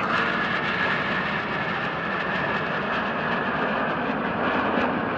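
The jet engines of a formation of Northrop F-5E Tiger II fighters make a steady roar with a faint high whine running through it.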